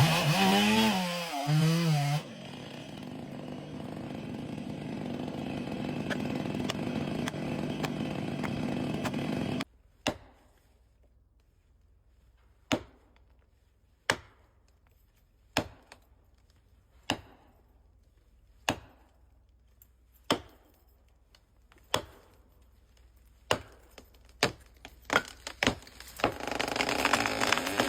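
A chainsaw revs with a wavering pitch, then runs steadily through a cut and stops abruptly. Sharp knocks on wood follow, about one every second and a half, coming faster toward the end. The chainsaw starts up again near the end, its pitch rising.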